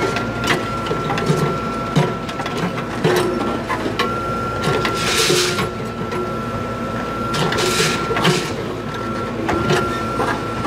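JCB 3CX backhoe loader's diesel engine running under hydraulic load, with a steady high whine, while its backhoe bucket knocks against bundles of steel rebar. There are repeated short metallic knocks and two longer hissing bursts, about five and eight seconds in.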